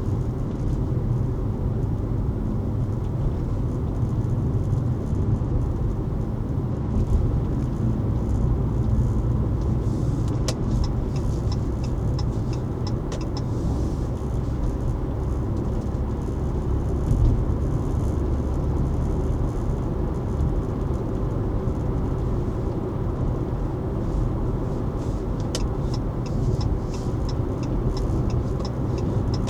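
Car on the road: a steady, low engine and road rumble, with a few light ticking sounds a third of the way in and again near the end.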